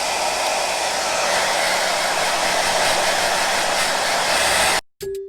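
Remington hair dryer blowing steadily, a strong even rush of air. It cuts off abruptly near the end, and the first note of a musical jingle starts just after.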